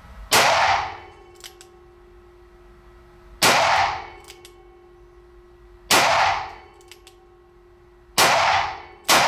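Five shots from a Ruger LCRx five-shot .38 Special +P snub-nose revolver, emptying the cylinder. The first four come two to three seconds apart and the fifth about a second after the fourth; each is a sharp crack with a short ringing tail. Faint clicks come between the first shots.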